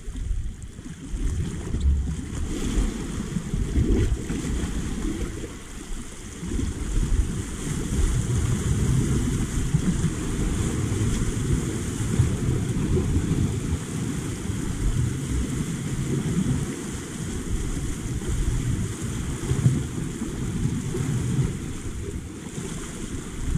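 Gusting wind on the microphone over sea waves washing against a rocky shore.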